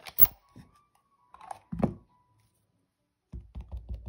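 Clear acrylic stamp block tapped quickly and repeatedly onto an ink pad, about seven light taps a second starting near the end, to ink the stamp. Earlier, a click and then one heavier thump as the stamping supplies are handled.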